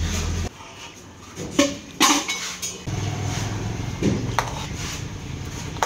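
Serving utensils clinking and knocking against pots and a takeaway container as biryani rice is portioned out, a few sharp clatters in quick succession, over a low steady hum that drops out about half a second in and returns about three seconds in.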